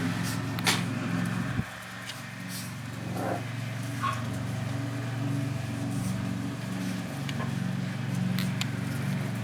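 A steady low engine hum, dropping in level about one and a half seconds in, with a few scattered clicks.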